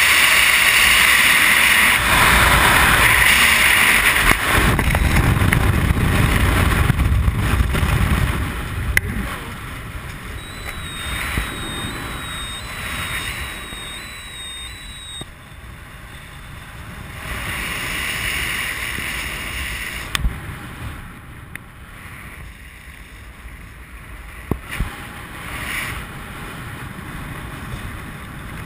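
Wind rushing over a skydiver's helmet camera in freefall, loud at first, then dropping off after about eight seconds as the parachute opens. It gives way to softer wind buffeting and fabric flutter under the canopy.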